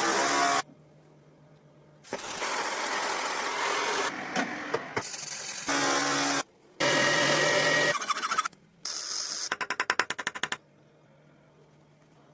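Workshop tool noise in short clips cut together: steady, hissing machine sounds start and stop abruptly with brief gaps between them. About nine and a half seconds in comes a rapid rattle of about ten clicks a second lasting about a second, after which only a faint low hum remains.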